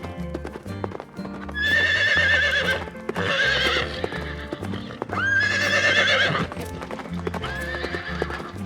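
Horse whinnying four times, each call a high, quavering neigh, over background music with a steady bass line.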